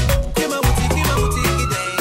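Sierra Leonean Afropop dance music with a steady drum beat. A long synth note glides upward partway through, and the bass drops out near the end.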